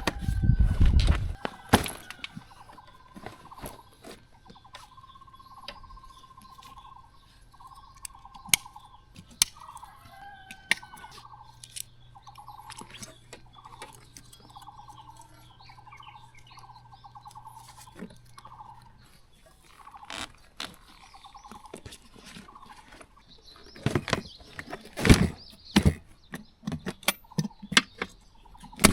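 A bird calling a long series of short, evenly repeated notes, over scattered clicks and knocks of camping gear being packed up, with louder clatter at the start and again about 25 seconds in.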